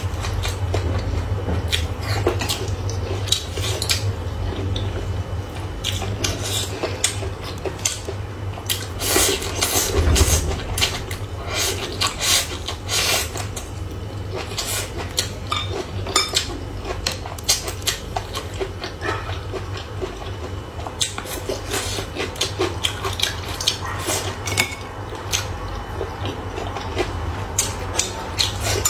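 Chopsticks and tableware clicking and clinking against bowls and plates while eating: many small, irregular sharp clicks over a steady low hum.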